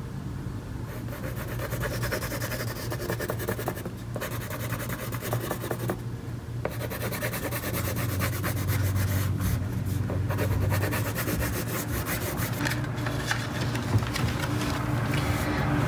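Black wax crayon rubbing steadily back and forth on paper as an area is coloured in: a scratchy rasp.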